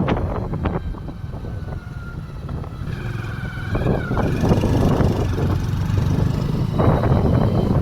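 Motorcycle on the move along a road: a steady engine and wind rumble that dips for a moment and builds again, with a short warbling tone about three seconds in.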